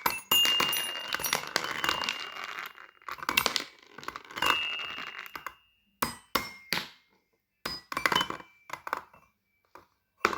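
Small hard fidget toys clinking and clattering, with short ringing tones after some of the knocks. Dense clatter for the first few seconds, then separate clicks spaced out.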